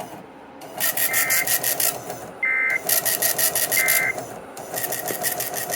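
A printer printing line by line: a fast even rattle in bursts of about a second, with short pauses between lines.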